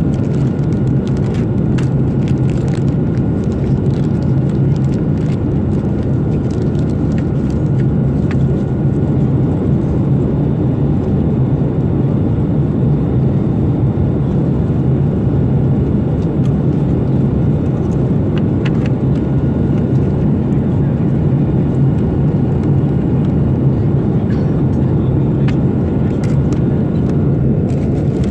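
Steady low drone of a Boeing 787 airliner's cabin in flight, the noise of airflow and engines, with a few faint crackles of foil and plastic wrapping as a meal tray is handled.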